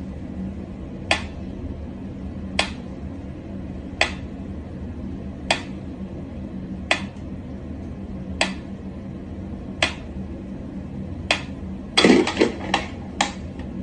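Mechanical pendulum metronome ticking slowly, one sharp tick about every second and a half. About twelve seconds in, a thump and a quick run of knocks as a cat springs up at it.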